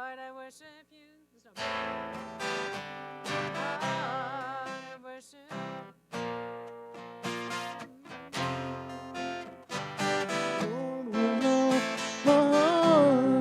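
Acoustic guitar strumming chords in a slow worship-song accompaniment, starting about a second and a half in after a sung note dies away. A voice comes back in over the guitar near the end.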